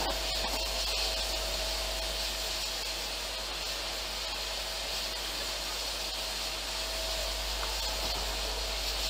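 Strong wind blowing over the microphone: a steady rushing hiss with a low rumble underneath and a faint steady whine.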